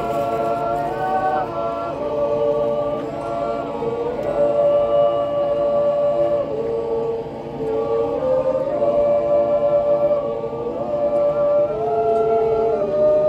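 Swiss men's yodel choir singing a cappella in close harmony, holding long chords that move step by step to new notes.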